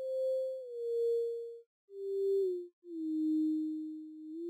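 Ammo 100LA software oscillator playing a pure sine-wave tone like a theremin. Its pitch glides from note to note with portamento, sliding down through several lower notes and starting to rise near the end, while the level swells and fades under the mod wheel. The tone breaks off briefly twice in the middle.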